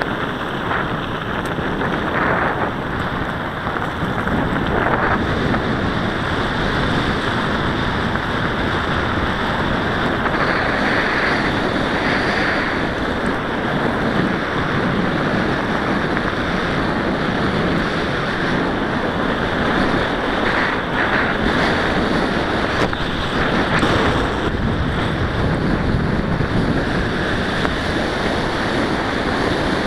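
Steady wind noise buffeting the microphone of a camera on a moving mountain bike, mixed with the tyres rolling over a gravel path.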